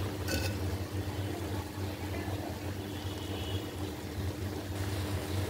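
Steady low hum with a soft hiss over it, and one light click about a third of a second in.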